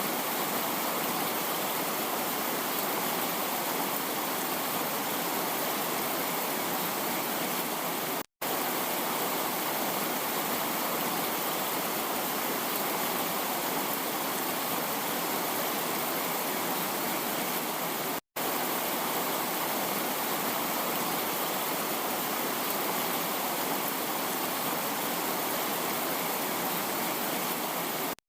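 Steady, even hiss of heavy rain falling, broken by two very brief dropouts to silence about 8 and 18 seconds in.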